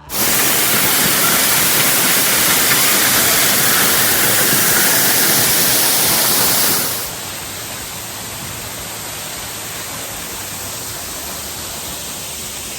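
Waterfall rushing, a steady loud wash of falling water that drops abruptly to a lower level about seven seconds in.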